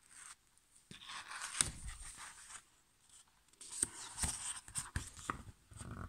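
Paper page of a hardcover picture book being turned by hand: two spells of rustling and sliding paper with small clicks and taps as the page is handled and laid flat.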